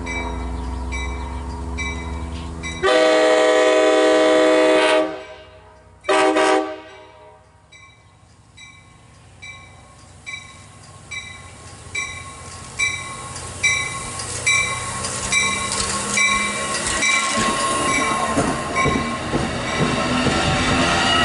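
Amtrak Capitol Corridor passenger train sounding its horn: one long chord of about two seconds, three seconds in, then a short blast a second later, over an engine's low rumble. A bell rings steadily about once a second throughout, and the rumble and clatter of the moving train's wheels build up through the second half.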